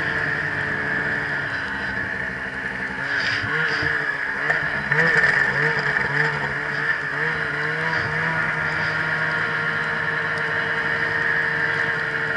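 Snowmobile engine running under way through deep powder, its pitch rising and falling several times in the middle of the stretch as the throttle is worked, then holding steady, with a constant high whine above the engine note.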